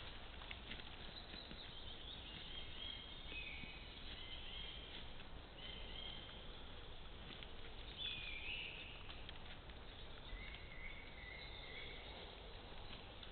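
Woodland birds singing in short whistled phrases, one sliding down in pitch about eight seconds in, over faint irregular clicks and rustles of a red deer stag cropping grass and stepping close by.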